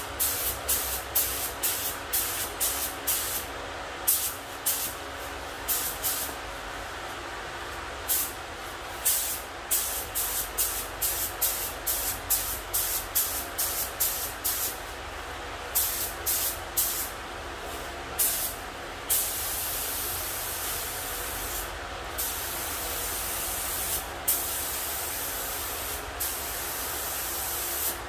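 HVLP spray gun laying on epoxy primer, its air hissing in many short trigger pulls, then from about two-thirds of the way in a long continuous spray broken by a few short pauses.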